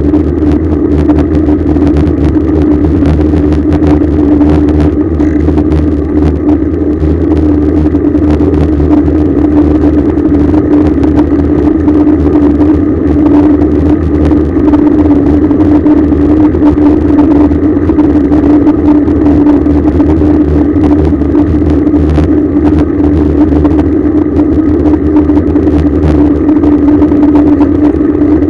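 Loud, steady wind and road rumble on a bicycle-mounted rear camera's microphone as the bicycle rides along, with a constant hum running through it.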